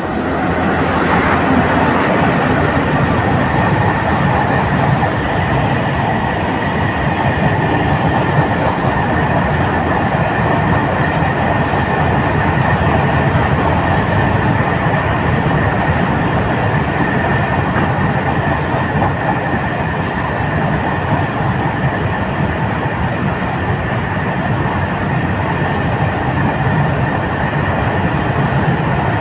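Freight train of new wagons hauled by a WAG-7 electric locomotive rolling along the track: a loud, steady rumble of wheels on rail with a thin, steady high-pitched tone over it.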